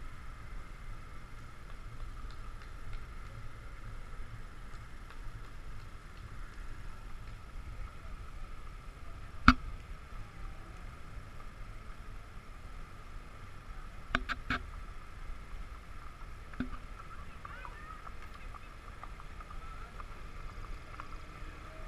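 Outdoor street ambience with a steady low rumble and a faint steady hum. A single sharp click comes about nine and a half seconds in, and a quick run of three clicks follows about five seconds later.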